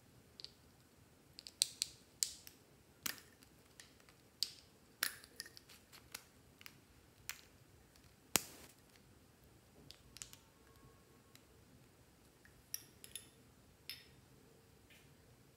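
Plastic lipstick tubes handled: caps pulled off and the tubes tapped and clicked, giving a scattered series of sharp clicks. The clicks come thickest in the first half, loudest about a second and a half in and about eight seconds in, with a few more near the end.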